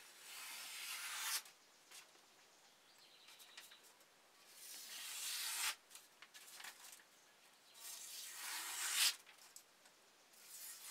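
Freshly sharpened kitchen knife slicing down through a sheet of scrap paper held on edge: three swishing cuts, each about a second and a half and growing louder toward its end, with a fourth starting near the end. The paper is cut smoothly rather than ripped, the test of a sharp edge.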